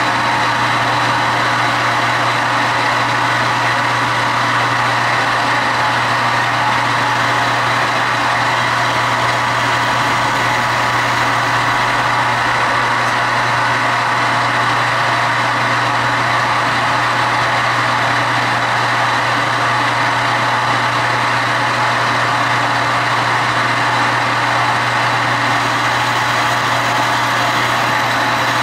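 Metal lathe running steadily through a long facing cut on a steel part, its motor and drive giving a constant hum with a thin high whine over the cutting noise.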